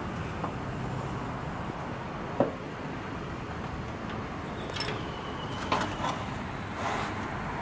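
Scattered metallic clicks and taps of hand tools working on a Suzuki VanVan RV200's single-cylinder engine during a valve clearance check, with one sharper click about two seconds in, over a steady workshop background noise.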